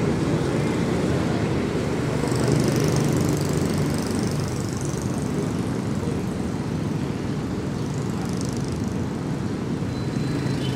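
Steady road traffic rumble, with the hiss of passing vehicles swelling a couple of times.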